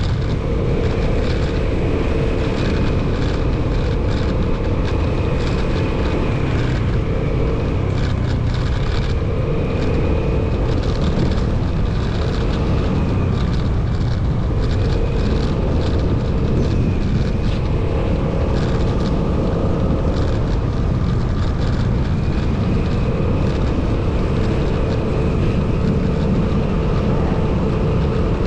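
Motorcycle on the move: a steady engine drone under a constant rush of wind and road noise, with a faint whine that fades in and out every few seconds.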